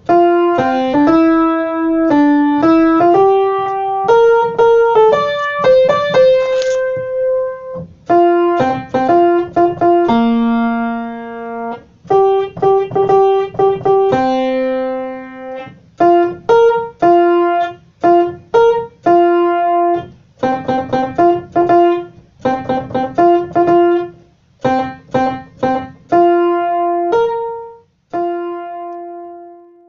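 Piano picking out the bass part of a Christmas cantata song as a practice track: a single line of separate notes in short phrases with brief pauses, ending on a held note near the end.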